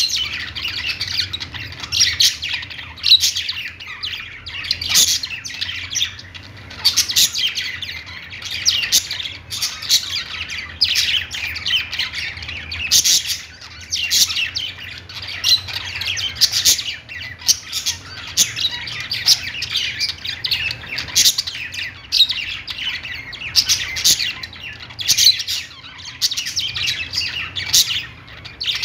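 A group of budgerigars (pet parakeets) chirping and chattering, with many short overlapping chirps and occasional squawks coming in quick clusters.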